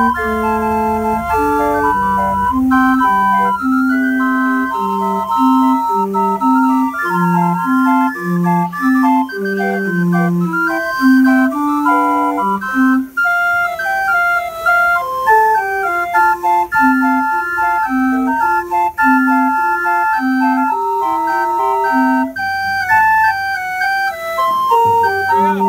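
A 1924 circus calliope's brass whistle pipes playing a tune: a melody of held notes over a bass line that steps back and forth about twice a second.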